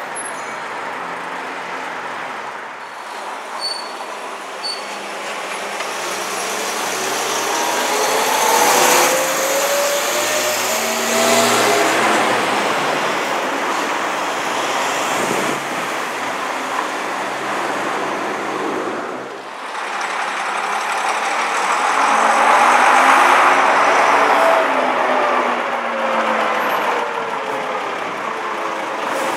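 Road traffic passing close by: a vintage coach, cars and a single-deck bus drive past, engine drone and tyre noise swelling and falling in pitch as each goes by. The two loudest passes come about a third of the way in and again about three quarters in.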